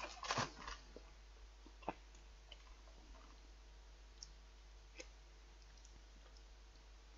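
Quiet clicking from eating chicken satay: a short cluster of clicks about a third of a second in, a sharper tick near two seconds, then a few faint single ticks.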